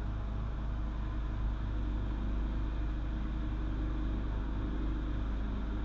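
Steady low mechanical hum that holds an even level and pitch throughout.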